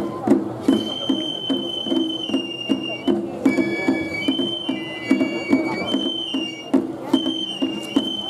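Japanese festival ensemble music of the shagiri kind: high bamboo flutes holding notes and stepping between pitches over a steady drum beat of about three strokes a second.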